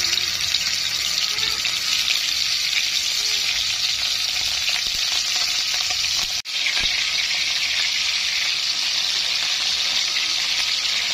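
Marinated beef slices just put into hot cooking oil, frying in the pan with a steady, dense sizzle. There is a brief break about six seconds in.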